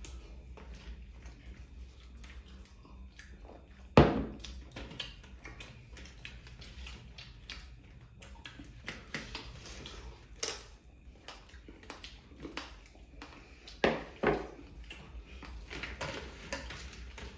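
Close-up eating sounds: chewing, paratha being torn and fingers working chicken chaap on steel plates, with many small clicks and rustles. A few sharper knocks stand out, the loudest about four seconds in.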